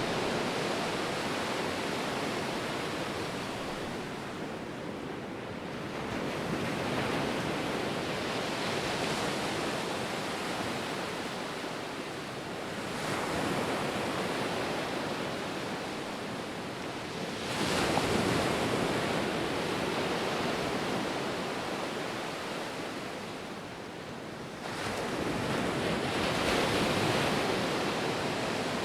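Ocean waves surging and washing in, each swell rising and fading, with fresh surges about every five to seven seconds.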